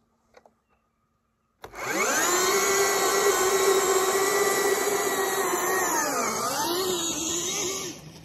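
KTM Freeride electric dirt bike's motor whining as it launches from a standstill about a second and a half in, with no engine sound before it moves. The loud whine holds steady, dips in pitch and rises again near the end, then falls away sharply as the bike rides off.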